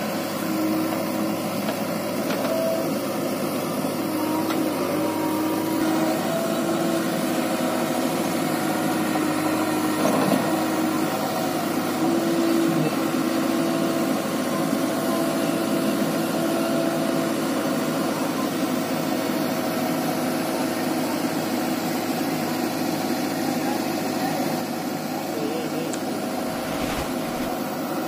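JCB 3DX backhoe loader's diesel engine running steadily under load as the hydraulic backhoe arm digs mud and shifts a concrete pole. A few engine tones come and go as the hydraulics work.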